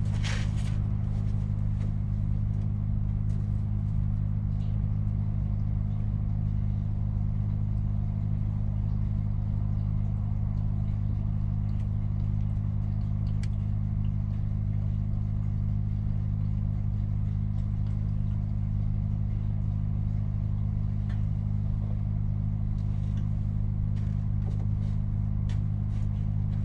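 Scania S500 truck's diesel engine idling steadily, a low even hum, with a few light clicks of handling near the end.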